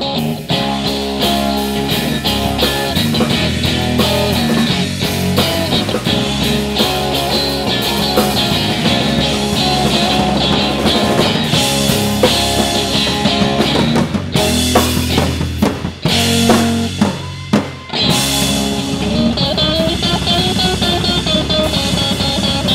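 Live blues-rock trio playing an instrumental passage: electric guitar over bass guitar and a drum kit, with a couple of short breaks in the music about two-thirds of the way through.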